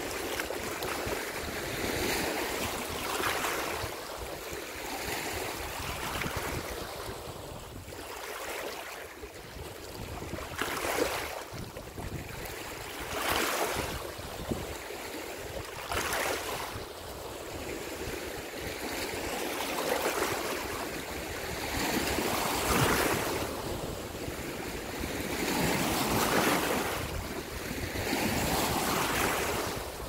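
Small waves lapping and splashing against the shore in irregular surges every few seconds, with a low rumble of wind on the microphone.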